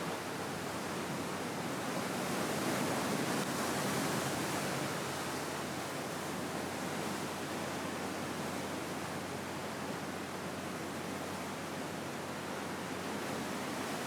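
Sea waves washing on the shore: a steady rush of surf that swells a little a few seconds in.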